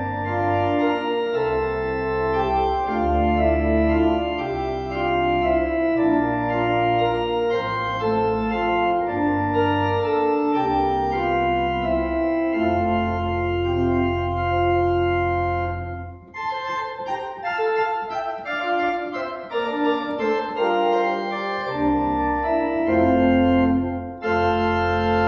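Church organ playing slow sustained chords over long held bass notes. About sixteen seconds in, the bass drops out and the upper voices play alone for several seconds, then the bass comes back in.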